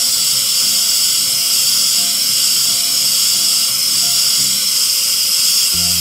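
Hair dryer running on its cool setting, a steady rushing blow of air with a faint steady whine, giving the hair a finishing cool shot to close the cuticle for shine.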